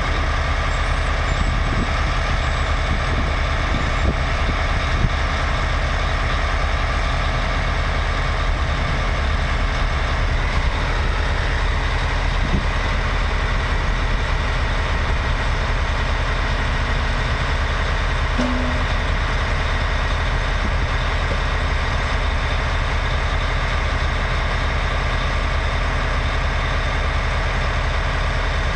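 Heavy diesel engine idling steadily, a constant low engine sound with no change in speed.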